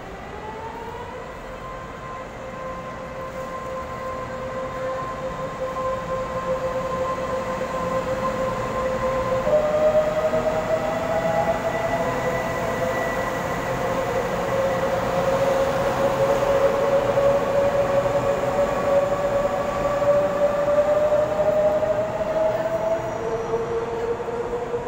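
Taiwan Railways EMU500 electric multiple unit pulling away from the platform and passing close by. Its traction motors give a whining tone that rises in pitch, steps up about ten seconds in and keeps climbing as it gathers speed. The tone sits over the rumble of the wheels on the rails, loudest midway as the cars go past.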